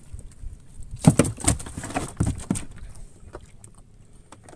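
A quick run of knocks and thumps aboard a small fishing boat starting about a second in and lasting under two seconds, followed by a few faint clicks.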